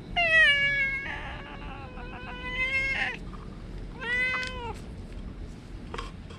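Tabby cat meowing while being stroked: one long, drawn-out meow of about three seconds, then a second, shorter meow about four seconds in.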